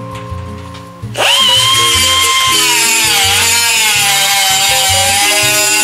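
Pneumatic grinder grinding the welded seam in the car's steel body panel: it spins up about a second in with a high whine that dips a little in pitch under load, then spins down near the end. Background music plays throughout.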